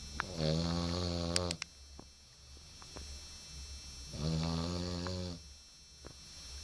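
Snoring: two snores, each a little over a second long and about four seconds apart, with a few faint clicks in between.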